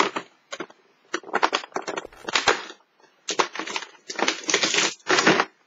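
Crackling and rustling of a cardboard chocolate advent calendar door being pushed open and a foil-wrapped chocolate taken out, a quick run of short crinkling noises.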